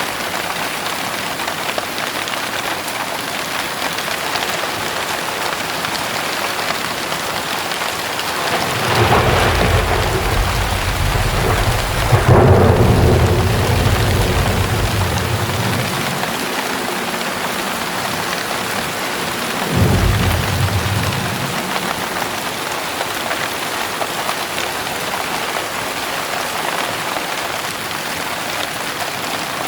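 Heavy rain falling steadily with thunder: a deep rumble builds about nine seconds in, breaks into a sharp crack a few seconds later and rolls on for several seconds, then a second, shorter rumble follows about twenty seconds in.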